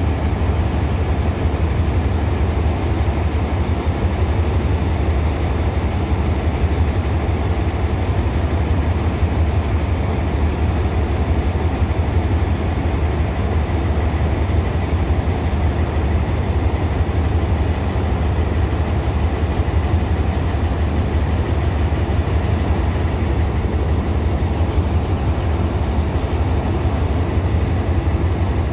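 Hitachi diesel-electric locomotive No. 4505 idling at a standstill: a steady, deep, unchanging drone.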